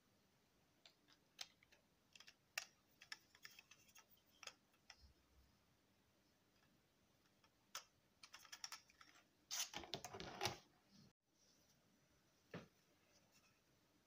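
Light clicks and taps of 3D-printed PLA plastic paddle-wheel parts being handled and fitted together. A busier run of clicking and rubbing comes near the end, followed by a single click.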